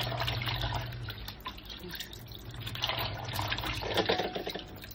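Tap water running into a stainless steel sink, splashing over cut chicken pieces as they are rinsed and turned by hand, with a louder splash about four seconds in.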